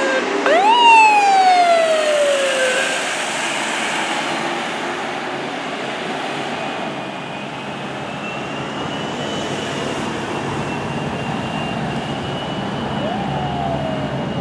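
Fire apparatus siren on a responding engine or squad: a quick rise to a peak about a second in, then a slow falling wind-down over about two seconds. A fainter steady high tone follows, and a second shorter rise-and-fall comes near the end, over steady traffic and engine noise.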